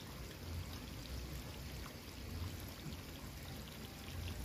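Steady rush of running water beside a flooded rice paddy, with an irregular low rumble underneath.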